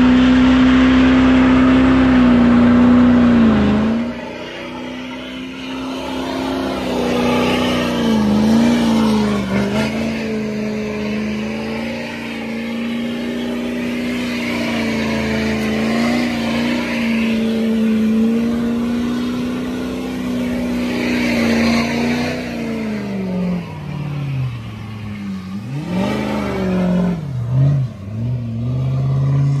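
Duramax turbodiesel V8 pickup held at high revs while spinning its rear tyres in a smoky burnout and donuts. The engine note holds steady with brief dips, and is heard close up at first and farther off after about four seconds. Near the end the revs fall and rise several times.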